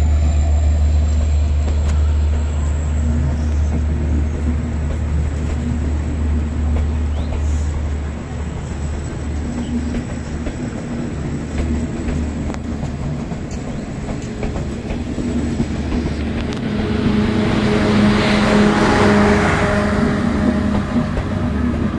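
Passenger train with LHB coaches rolling slowly past along a platform, a steady low rumble in the first few seconds. About 17 seconds in, the louvred generator power car passes close by; its diesel generator and fans are the loudest sound, a rising hum with a few steady tones.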